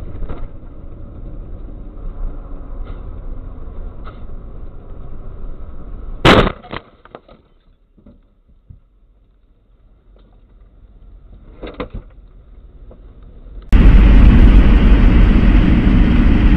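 Vehicle road noise, then a loud, sudden crash of a collision about six seconds in, followed by a few softer knocks near twelve seconds. Shortly before the end there is an abrupt jump to much louder engine and road noise.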